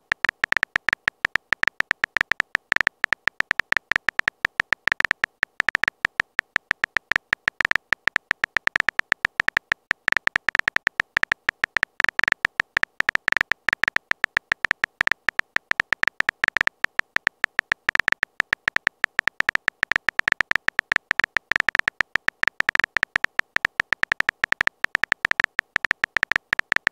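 Rapid, unbroken stream of phone-keyboard typing clicks: short, sharp high ticks, many each second.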